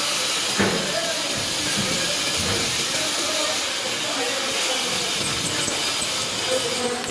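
Stick (arc) welding: the arc crackling and hissing steadily as the electrode burns.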